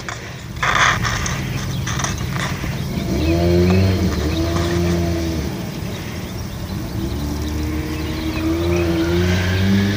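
A vehicle engine running with a low, steady hum, heard in two stretches of a few seconds each, its pitch wavering slightly up and down.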